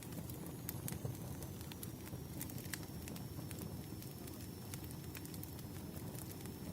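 Wood fire burning, with frequent sharp crackles and pops over a steady low rumble. A faint high whistle dips and rises again.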